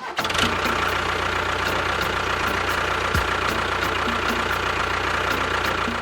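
Engine idling steadily, with a faint regular tick about three times a second.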